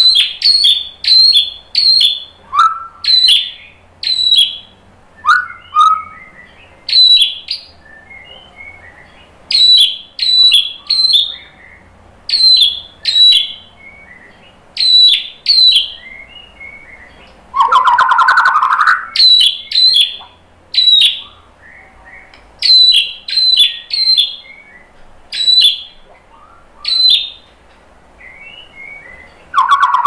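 White-rumped shama (murai batu) calling: clusters of short, sharp, high notes, repeated throughout, with one longer, lower burst about two-thirds of the way through.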